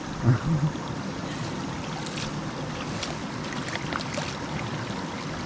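Steady rushing of a mountain river, an even noise that runs on without pause.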